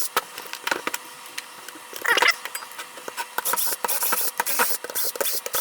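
Hand disassembly of a Makita DHR243 rotary hammer's plastic handle: irregular clicks, taps and scraping of tools and housing parts, with a short squeak about two seconds in and scratchy rattling in the middle.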